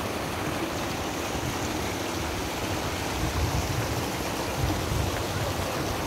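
Shallow rocky brook running over boulders and small cascades, a steady rushing and splashing of water.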